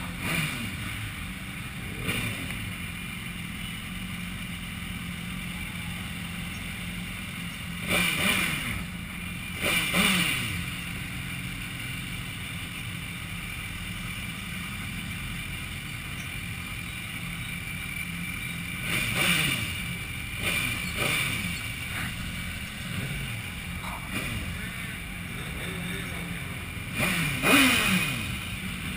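A group of sport motorcycles ride slowly in a line, engines running steadily at low revs. Engines rev up and back down in short bursts about five times, the loudest near the end.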